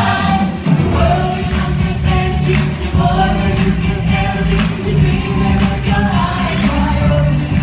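A song with a woman singing the melody over a steady beat and a repeating bass line, played loud through a theatre sound system.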